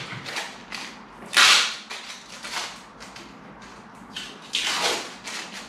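UPVC window glazing beads being prised out of the frame: a few short, sharp plastic snaps and scrapes with small clicks between, the loudest about a second and a half in and another strong one about five seconds in.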